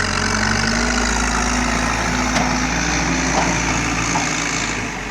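Caterpillar heavy machine's diesel engine running, picking up a little in speed and loudness at the start, then holding steady.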